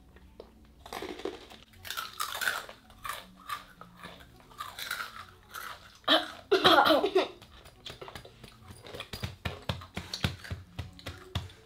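Crunching and chewing of Takis rolled tortilla chips: many short, crisp crunches in quick succession. A louder vocal sound comes a little past six seconds in.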